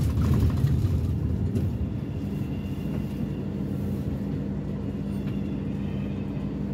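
Hong Kong green minibus heard from inside the cabin: low road and engine rumble eases over the first couple of seconds as the bus slows to a stop, then the engine idles with a steady low hum.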